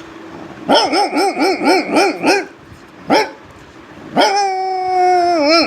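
A man imitating a dog running up: a quick run of short yapping barks, about four a second, then a single bark, then one long held howl that drops in pitch at the end, running straight back into quick yaps.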